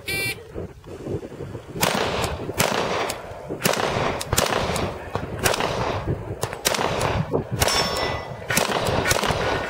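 A short beep, then a steady string of about a dozen pistol shots, roughly one every half second, from a Glock 35 in .40 S&W being fired in a timed match string.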